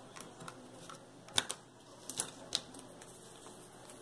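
A handful of light clicks and taps, the sharpest about one and a half seconds in, as hands handle a lump of white modelling paste on a small metal digital kitchen scale.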